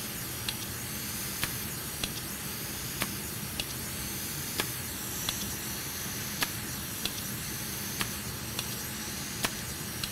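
Hot air rework station blowing a steady hiss while a manual solder sucker (desoldering pump) is fired over and over, a sharp click about every half second to a second, some fifteen in all, pulling molten solder out of a board's connector through-holes one pump per hole.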